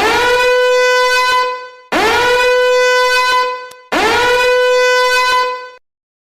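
Three long horn blasts on the same note, each nearly two seconds, each scooping up in pitch at its start, holding steady, then fading. Played as a meme sound effect.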